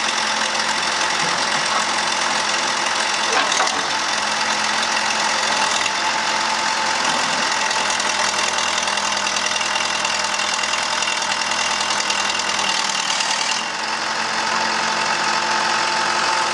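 Case 580C backhoe's engine running steadily, with a brief knock about three and a half seconds in.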